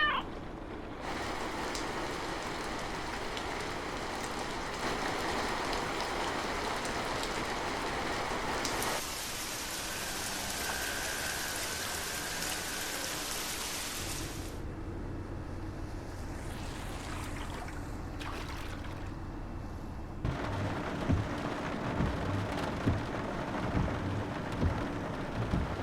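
Rain falling, a steady hiss whose character changes abruptly several times. Near the end, a series of low thuds about once a second sounds under it.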